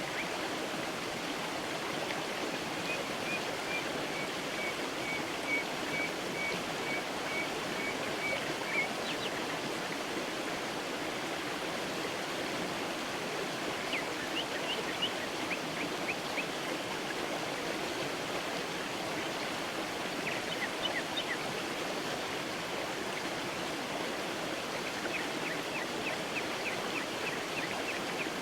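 Creek water running steadily over stones, with small birds calling faintly above it: a run of evenly repeated notes in the first few seconds, and short quick series of high notes about halfway through and near the end.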